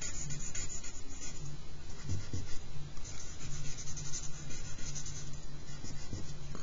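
Stick of charcoal scratching across drawing paper in repeated short strokes, darkening an outline.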